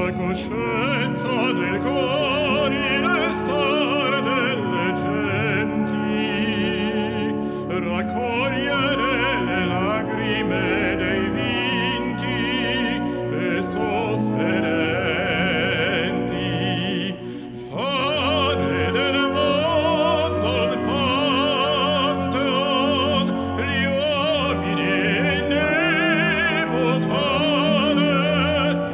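Operatic baritone singing with a wide vibrato over instrumental accompaniment, with a short break about seventeen seconds in.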